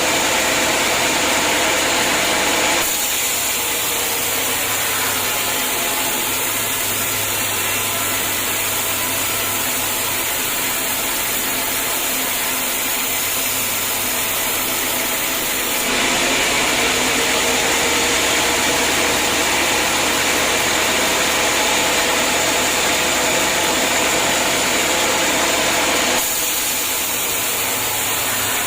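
Homemade band sawmill running through a hard acacia log: a steady sawing noise over the machine's motor. The sound shifts between slightly louder and slightly quieter a few times, about 3 seconds in, around the middle and near the end.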